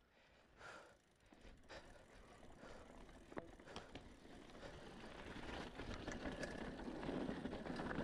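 Cannondale Trail SL4 mountain bike rolling downhill on a dirt trail: tyre and wind noise that grows steadily louder, with scattered clicks and rattles from the bike. A couple of the rider's breaths come in the first two seconds.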